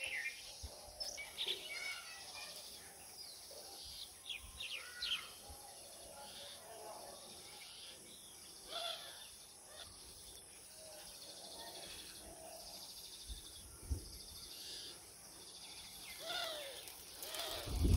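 Several small birds calling and chirping here and there, short rising and falling notes, over a steady high drone of insects such as crickets.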